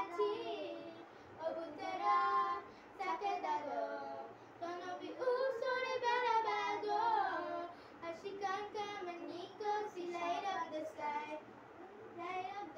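Girls singing a pop song into pretend microphones, voices carrying the melody with no clear backing music.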